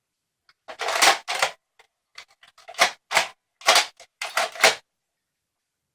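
Plastic Nerf N-Strike Elite Mega blaster being handled: a run of short scraping, clacking strokes, several in quick pairs, like the priming slide being worked back and forth.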